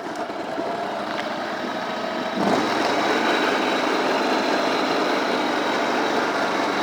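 A John Deere GX345 lawn tractor's 20 hp liquid-cooled Kawasaki V-twin engine, just started, running steadily. It gets louder about two and a half seconds in.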